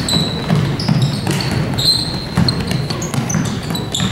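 Basketball being dribbled on a hardwood gym floor during a game, with players' sneakers squeaking in short, high chirps over an echoing hall.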